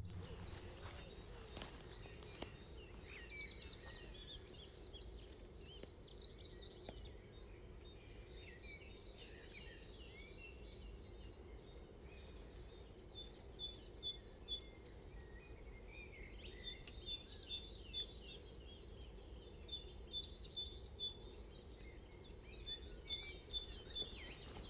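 Several songbirds singing, with fast trilling phrases that come in two busier spells, over a steady low rumble.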